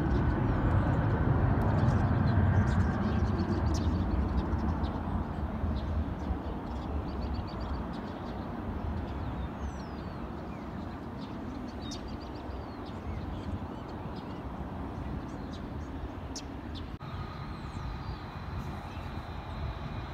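Distant jet airliner's engine rumble fading away as it departs. Near the end, a steady high whine from an Embraer E175's turbofans as it taxis.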